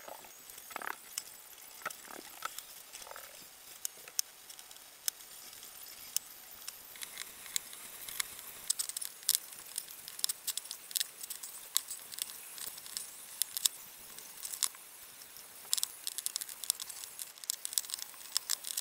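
Hand-stitching a leather sheath held in a small bench vise: needles and thread handled and pulled through the leather, giving irregular light clicks and scratchy rustles. A few faint squeaks come early, and the clicks grow busier in the second half.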